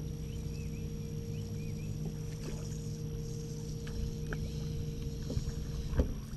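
Bass boat's electric trolling motor humming steadily. Part of the hum cuts off about six seconds in, at the same moment as a short knock.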